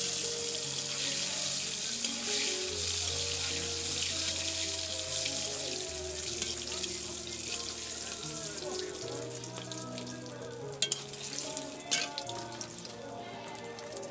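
Food frying in hot oil in an aluminium wok: a loud, steady sizzle that slowly fades as it settles, with two sharp clinks of the metal spatula against the wok near the end. Background music plays under it.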